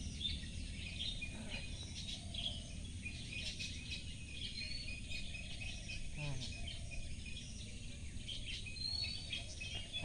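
Garden ambience of small birds chirping, with a few short rising whistles near the end, over a steady low background hum and insect noise.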